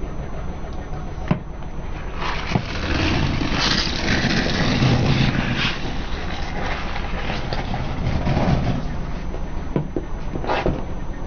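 A car running slowly as its tyres roll over objects, with a low rumble throughout. A few sharp cracks come from things being crushed under the wheels, and a longer stretch of crunching noise falls between about three and six seconds in.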